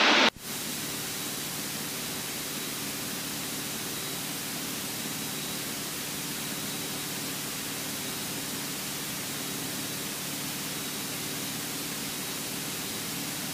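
Steady in-cabin noise of a Cessna 172 in flight: an even hiss with the low drone of its piston engine and propeller beneath it.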